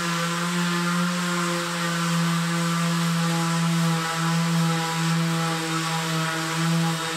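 Corded electric orbital sander running steadily against a wooden timber beam, a continuous hum that wavers slightly as it is pressed and moved over the wood.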